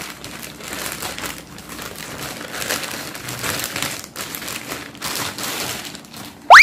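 Plastic courier mailer bag being torn open by hand and rummaged, a continuous crinkling and crackling of plastic. Near the end a brief, loud rising tone cuts in.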